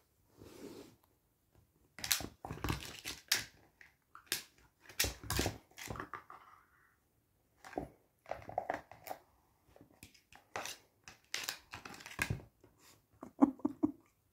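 A dog handling an empty plastic food bowl: irregular knocks, clatters and scrapes, some in quick clusters, with short quiet gaps between.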